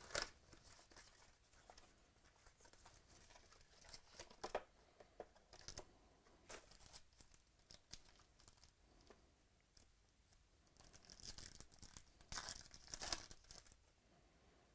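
Faint intermittent rustling and crinkling of trading-card packaging and cards being handled, with a few louder crackles, the busiest stretch coming near the end.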